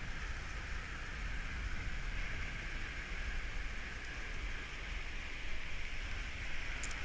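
Steady hiss of ocean surf washing on the beach, with a low rumble of wind on the microphone.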